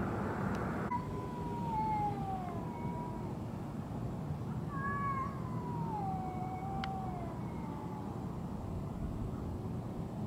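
Cat yowling: two long drawn-out wails, each falling in pitch, the second wavering, the threat call of cats squaring off before a fight. A steady low rumble runs underneath, with a single sharp click about seven seconds in.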